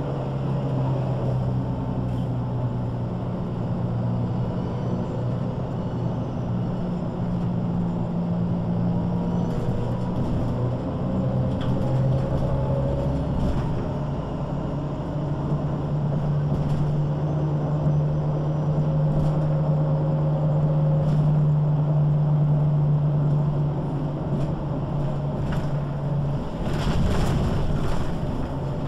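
MAN NG 313 articulated bus under way, its diesel engine running steadily under load through the ZF gearbox. The engine note shifts a couple of times as speed or gear changes. There are a few light clicks, and a short burst of rattling near the end.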